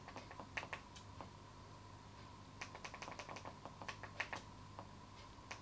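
Faint, sharp clicks as the Android TV menus are stepped through: a few scattered ones, then a quick run of about eight near the middle and a few more just after. A faint steady tone runs underneath.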